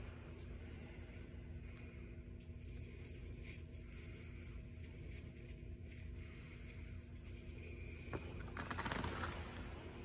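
Faint rubbing and small ticks of a paracord sling being handled as a tennis ball is seated in its pouch, over a steady low ventilation hum. A louder rustle comes near the end.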